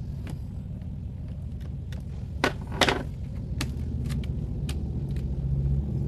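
Handling noise from reassembling the opened water heater: hands working wires and parts inside its plastic casing, with scattered light clicks and two louder knocks close together about two and a half seconds in, over a steady low rumble.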